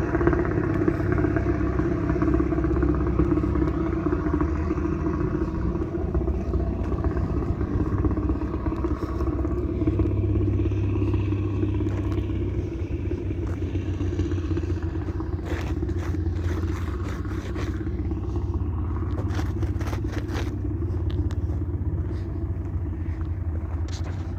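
Heavy diesel engine of a motor grader running steadily at constant speed, with scattered clicks and scraping about two-thirds of the way in.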